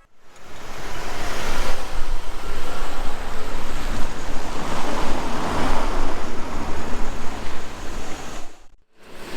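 Surf, a steady rushing noise of waves.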